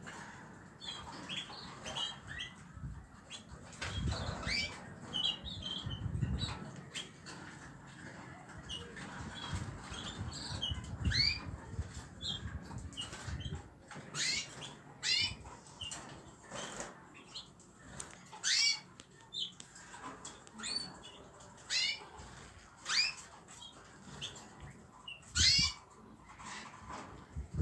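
Young cage birds chirping again and again in short, high, upward-sliding calls, thicker in the second half, with a few low bumps.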